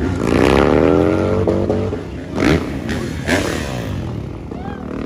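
Dirt bike engines revving: a rising rev in the first second or so, then two sharp throttle blips about two and a half and three and a half seconds in.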